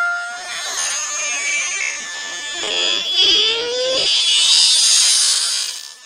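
A sneeze played backwards and slowed down: a drawn-out breathy hiss, a voiced tone rising in pitch in the middle, then a louder hiss that cuts off near the end.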